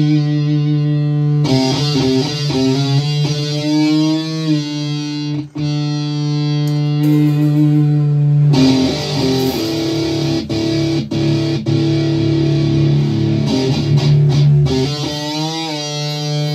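Electric guitar playing long sustained notes, several of them bent in pitch, with a brief break about five and a half seconds in.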